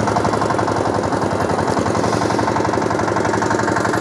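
Engine of a homemade 'desi' tractor running as it drives slowly, its exhaust beating in a rapid, even, hammering rhythm.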